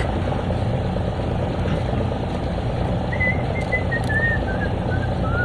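An engine running steadily with a low, even drone. From about three seconds in, a faint wavering whistle-like tone drifts slowly down in pitch.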